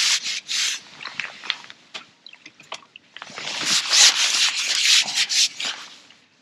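Rubbing and rustling strokes: a few at the start, scattered small scratchy ticks in the middle, then a loud dense run of strokes from about three seconds in, tailing off near the end.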